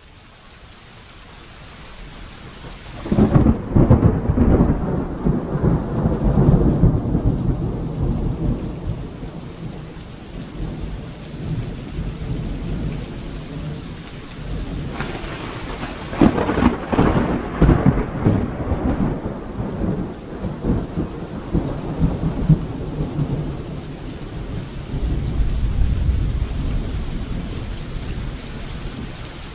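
Thunderstorm: steady rain with two peals of thunder. The first breaks suddenly about three seconds in and the second about halfway through, and each rolls on as a long low rumble.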